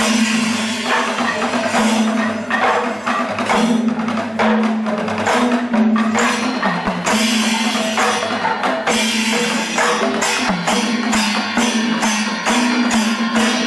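Kerala temple festival music: rapid, dense drum strokes and clashing hand cymbals over a held melody line that shifts pitch now and then.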